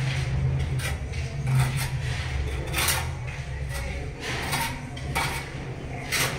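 Hammer striking a steel chisel against the concrete wall: a run of irregular, sharp metallic knocks, about eight of them, over a steady low hum.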